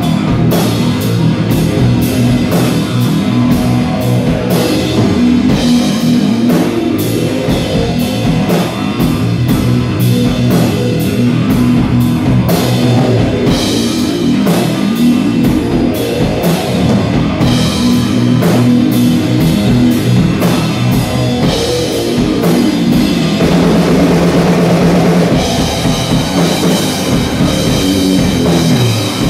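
Live heavy rock riffing: distorted electric guitar over a drum kit, with cymbals and snare struck steadily about two to three times a second.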